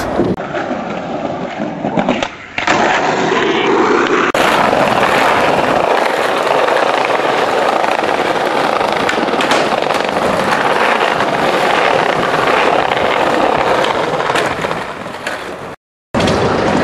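Skateboard wheels rolling over concrete and brick paving, a continuous rough rolling noise across several clips, dropping out briefly near the end.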